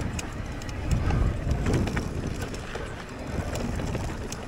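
Wind buffeting the microphone on a mountain bike ridden down a dirt trail, with tyre rumble and scattered clicks and knocks from the bike rattling over the ground.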